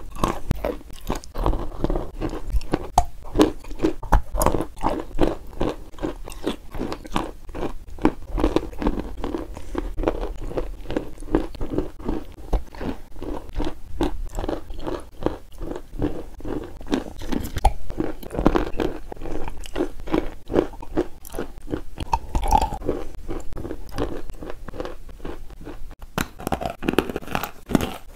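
Close-miked ASMR eating sounds: mouthfuls of a thick white sauce taken from a spoon, a dense run of small wet clicks and smacks. About two seconds before the end a different close-miked eating sound takes over.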